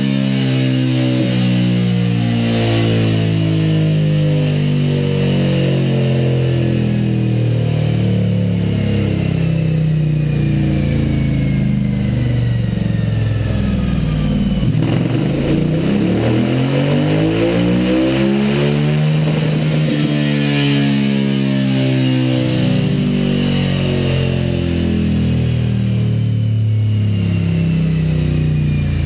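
Suzuki V-Strom 1000's V-twin engine running on a dynamometer through a Scorpion Serket Parallel aftermarket exhaust, its revs shifting continually. About halfway through, the revs fall away and then climb again.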